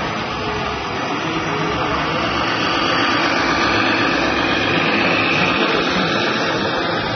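Radio-controlled scale MAN truck towing a long beam on a trailer drives past close by, a steady mechanical whine and rush from its drivetrain and wheels. It gets louder about halfway through as it passes nearest.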